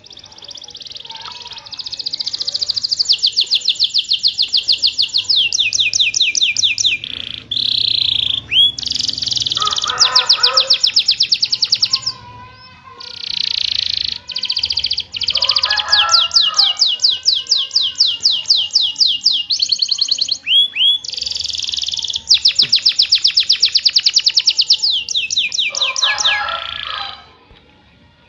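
Domestic canary singing a long, loud song of fast rolling trills and rapid repeated chirps, broken by brief pauses; a gacor canary's song of the kind played to set quiet canaries singing.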